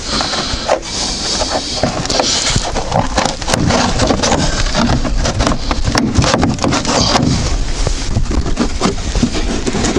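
Plastic wheel-arch liner being pulled out of its slots by hand: continual scraping and rubbing with many short cracks and clicks of plastic against the car body.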